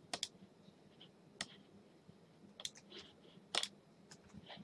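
Faint, scattered clicks from a computer mouse and keyboard, about ten short sharp clicks in under five seconds with irregular gaps.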